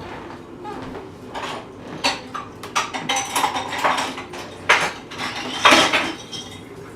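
A small spoon clinking and scraping irregularly against a dish as a toddler scoops food, with a few sharper knocks a little past halfway.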